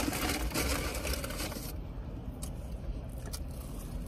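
Chewing of a crunchy fried chicken sandwich. Dense crackling crunches fill about the first second and a half, then the chewing goes softer with a few single clicks.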